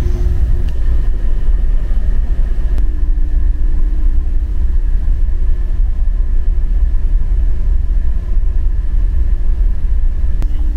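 Steady low rumble of a ferry's engines and machinery heard inside a passenger cabin, with a faint steady hum on top.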